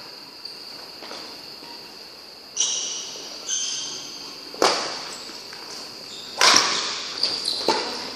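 Badminton rally: two sharp cracks of racket strings hitting the shuttlecock about two seconds apart, then a few lighter taps. Before them come two short shoe squeaks on the court floor, and a faint steady high-pitched tone sounds behind it all.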